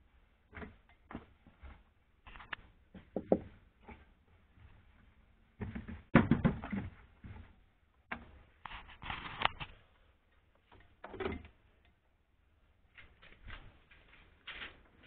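Irregular knocks, clicks and scraping from a VAZ 2106 front seat being handled and set onto its floor mounting bracket, with the loudest clatter about six seconds in and again around nine seconds.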